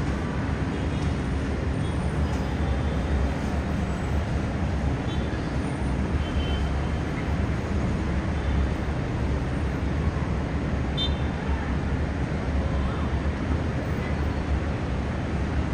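Steady low rumble of distant heavy city traffic on a multi-lane avenue, with a few faint short high tones about five seconds in and again near eleven seconds.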